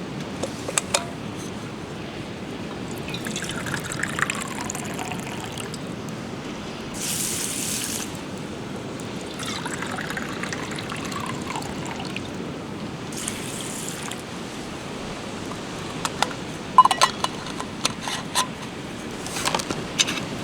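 Liquid being poured and trickling, twice with a falling pitch, over a steady low background, with a few sharp crackles near the end.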